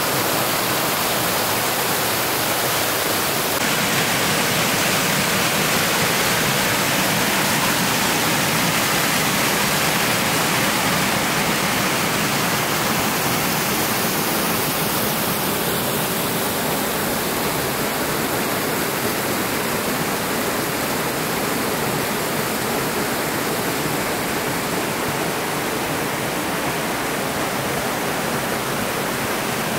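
Creek water rushing steadily over small rock cascades, a continuous even roar of falling water.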